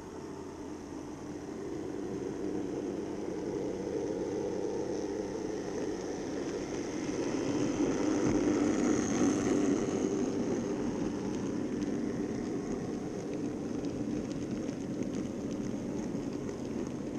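N-scale Minitrix V160 model diesel locomotive and its coaches rolling past on the track: a steady rumble of small wheels and running gear with a thin motor whine. It swells to its loudest about halfway through as the locomotive passes close by, then stays up as the coaches roll past.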